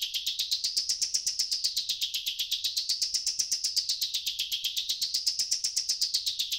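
Virsyn Addictive Synth wavetable synthesizer on an iPad, playing the PhaseTip preset through its arpeggiator. It repeats bright, high, chirpy notes at about eight a second. The tone sweeps up and down about every two seconds.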